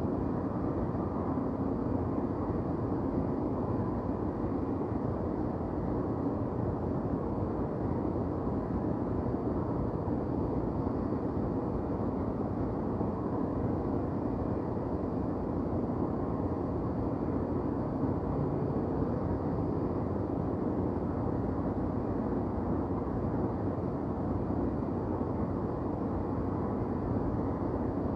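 Night-time downtown city ambience: a steady, low rumble of distant traffic with no distinct events standing out.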